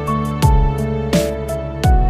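Background music with a steady beat: a low drum thump about every 0.7 seconds under a held melody.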